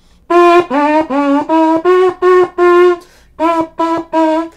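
A 3D-printed plastic trumpet playing a short tune as a run of about a dozen detached notes. Most notes are on one pitch and a few scoop up into it from below, with a brief break about three seconds in.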